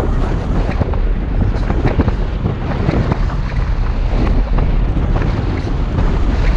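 Toyota FJ Cruiser driving through deep sand: a steady low rumble with wind buffeting the microphone and frequent small knocks and rattles.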